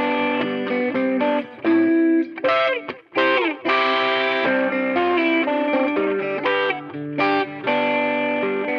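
Guitar music played through effects, with changing notes and chords. A brief break about three seconds in is followed by notes sliding downward.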